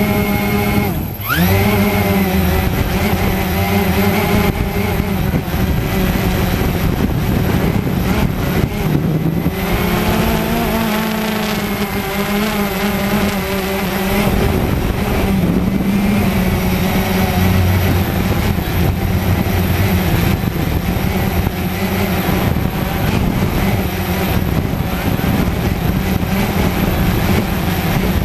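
Cheerson CX-20 quadcopter's brushless motors and propellers whining close up, heard from the camera mounted on the drone, the pitch sliding up and down as the throttle changes. About a second in the motors briefly drop low, then glide quickly back up.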